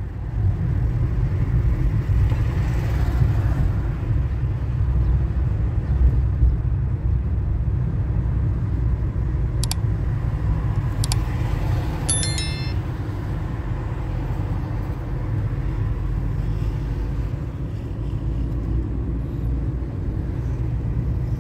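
Steady low rumble of a car's engine and tyres heard from inside the moving car. About halfway through come two short clicks and then a brief chime, the sound effects of a like-and-subscribe animation.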